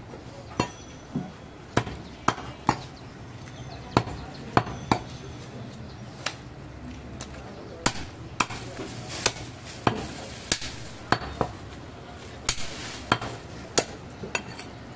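Butcher's cleaver chopping goat meat into pieces on a wooden log block: a string of sharp, irregular chops, roughly one or two a second.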